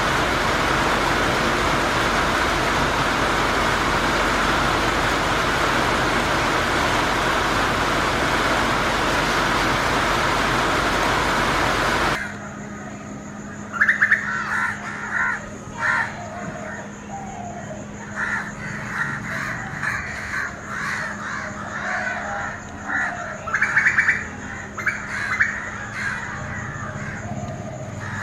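Heavy rain falling as a steady, even rush that cuts off abruptly about twelve seconds in. A common myna then calls over and over in short chattering phrases, over a steady low hum.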